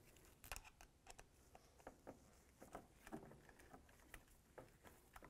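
Faint, irregular light clicks and taps of a screw and washer being handled and fitted into the slots of a plastic hood bug shield.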